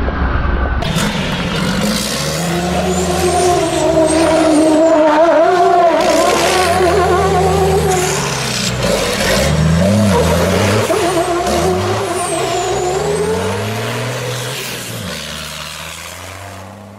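Racing truck's diesel engine revving up and down again and again during a drift show, with a wavering whine above it; the sound fades away near the end.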